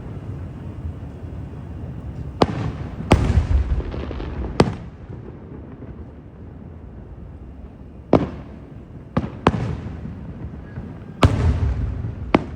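Aerial fireworks shells bursting: about eight sharp booms at uneven intervals, some trailed by a low rumble.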